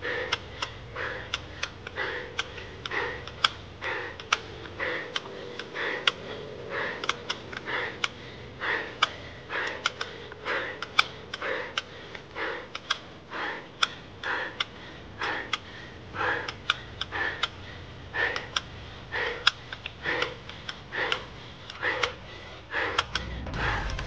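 Heavy, rhythmic panting of a cyclist straining up a very steep climb, about two breaths a second.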